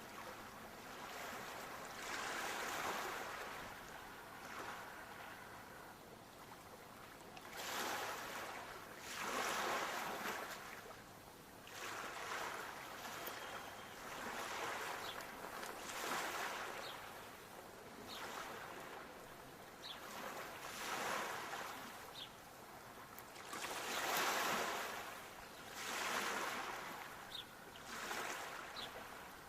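Sea waves breaking and washing on the shore, the surf rising and falling every few seconds.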